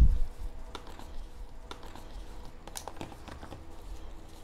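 Gloved hands handling a cardboard watch box and its paper inserts: scattered light clicks, taps and rustles of card sliding and knocking against card. A dull low rumble dies away in the first moment.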